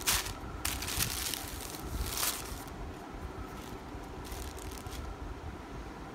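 Handling noise from unpacking camera accessories: plastic wrapping rustling and items being picked up and set down, in a few short bursts over the first half and once more a little past the middle, over a low steady rumble.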